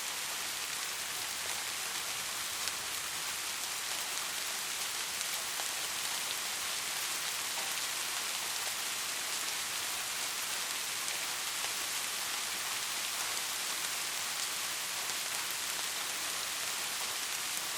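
Steady rain falling, an even hiss of many fine drops with no let-up or change.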